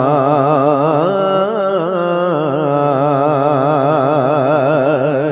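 A man singing Punjabi Sufi kalam, drawing out one long held phrase with no words, ornamented with a quick, wide vibrato. The pitch steps up about a second in.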